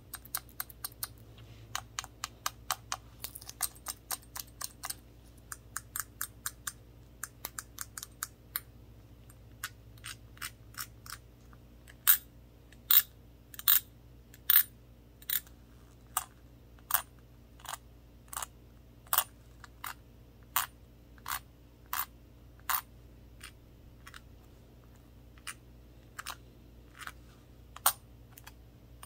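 Tapping on a small glass shot glass with a handle. First comes a quick run of light taps, several a second; then, from about twelve seconds in, come slower, sharper single taps a little under a second apart, which grow sparser near the end.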